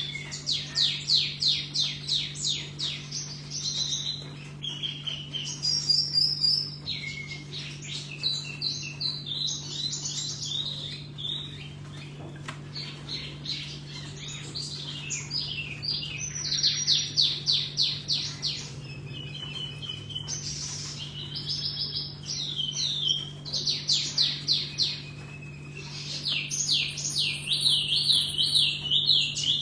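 Tiểu mi songbird singing: repeated phrases of fast, high notes, each note dropping steeply in pitch, with short pauses between runs. A steady low hum runs underneath.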